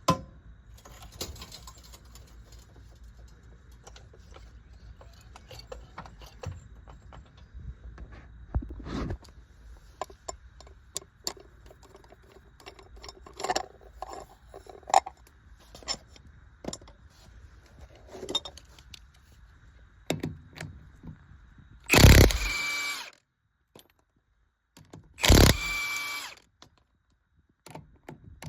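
Scattered clicks and clanks of hand tools and parts, then a handheld power tool run in two bursts of about a second each near the end, a whine under a rapid hammering.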